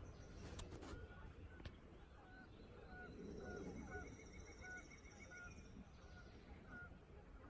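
Faint turkey yelps in a steady run of evenly spaced notes, a little under two a second, with songbirds trilling faintly behind and a few handling clicks near the start.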